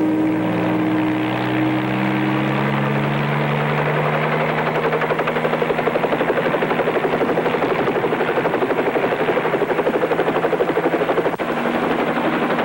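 Light helicopter powering up: the engine's pitch rises slowly as the rotor gathers speed. From about five seconds in, the rotor's quick, even beat sets in, with a brief break near the end.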